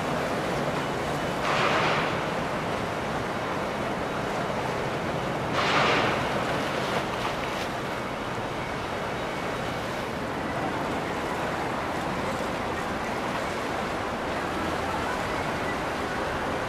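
Steady rush of moving water with wind on the microphone, and two brief louder splashes, about one and a half and six seconds in.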